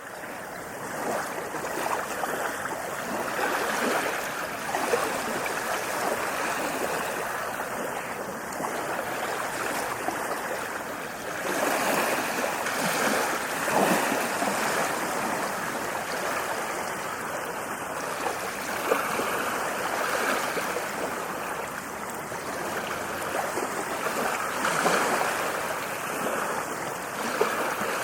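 Ocean waves breaking and washing on a beach: a continuous surf wash that swells with each breaking wave every few seconds.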